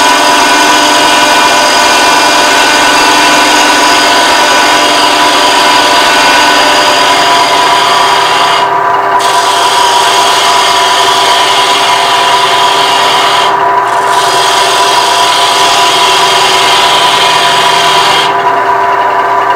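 Bowl gouge cutting the tenon off a wooden bowl spinning on a lathe: a steady scraping hiss of the cut over the lathe's steady running tone. The cutting breaks off briefly twice and stops near the end, leaving the lathe running.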